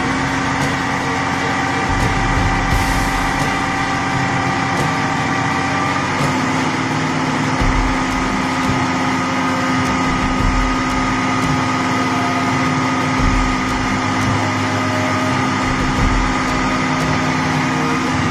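Diesel engine of a heavy multi-axle dump truck (31,000 kg gross) running at a low, steady speed as the truck crawls forward over gravel. The engine note steps slightly higher about six seconds in, with occasional low thumps.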